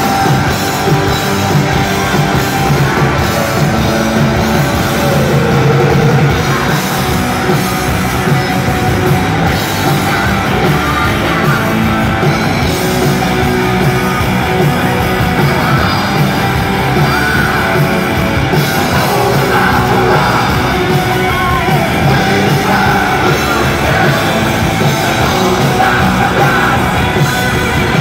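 A hard rock band playing live in an arena, loud and continuous: distorted electric guitars, bass and drums, with a male lead singer's high, strained vocal over them. It is recorded from the seats, so the sound is heavy with hall reverberation.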